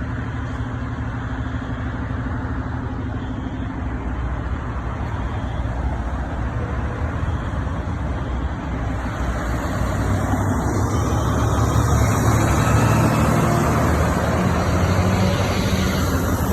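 Steady low engine rumble of a road vehicle, growing louder about ten seconds in.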